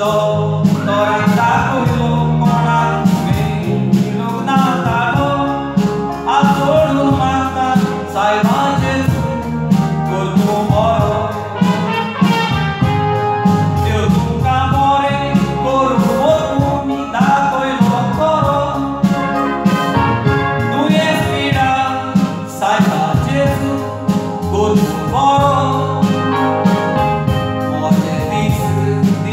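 A Konkani song: a voice singing a melody over continuous instrumental accompaniment with a steady bass line.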